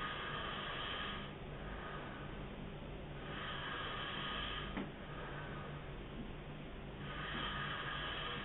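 A man snoring in his sleep: three noisy, breathy snores about three and a half seconds apart, each lasting a little over a second.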